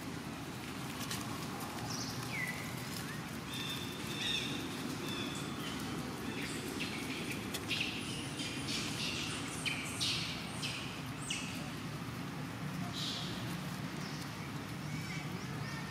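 Outdoor forest ambience: scattered short high chirps, some gliding downward, with a cluster of scratchy rustles in dry leaf litter in the middle, over a steady low background hum.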